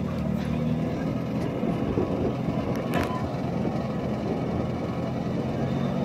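Willys Jeep engine running steadily while the rear-mounted backhoe works, with a sharp click about three seconds in.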